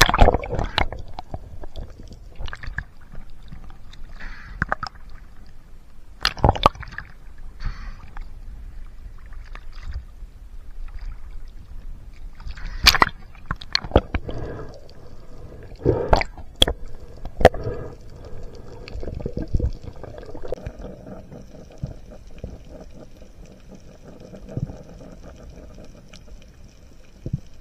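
Underwater sound through a diving camera's housing: water gurgling and sloshing, with irregular sharp knocks and clicks every few seconds. A faint steady hum comes in during the last few seconds.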